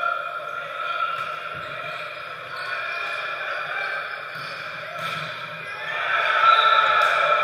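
Volleyball rally in an echoing gym hall: a few sharp hits of the ball over a steady din that grows louder about six seconds in.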